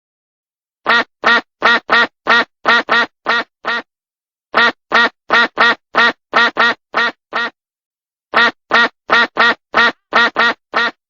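Duck quacking in three runs of quick quacks, about eight to ten in each run and roughly three a second, with short silent pauses between the runs.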